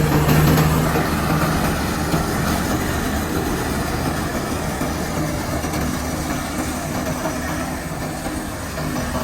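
Heavy diesel engine of a large construction vehicle running steadily, with a low engine drone under a rough haze of mechanical noise that eases off slowly.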